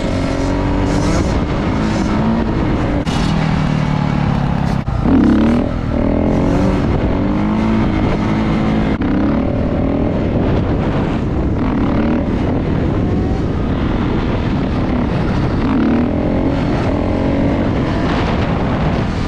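Dirt bike engine revving, its pitch rising and falling as the throttle opens and closes, with a louder surge about five seconds in.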